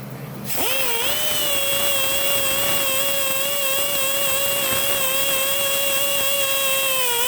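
High-speed electric power tool starting up, running steadily with a high whine, then switched off and spinning down near the end.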